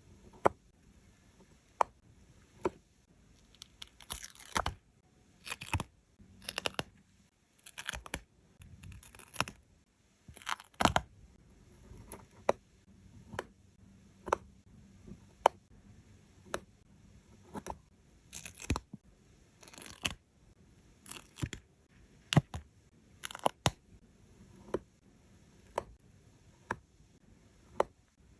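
Sticker paper being handled: short peeling and crinkling rasps as stickers come off their backing and are pressed down, with sharp taps and clicks at irregular intervals.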